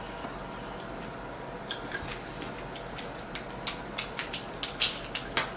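Crisp plastic candy wrapper crinkling in the hands: irregular sharp crackles starting about two seconds in and getting denser toward the end.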